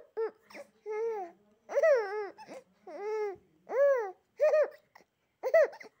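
Baby babbling and cooing: a string of about seven short, high, rising-and-falling vocal sounds, roughly one a second.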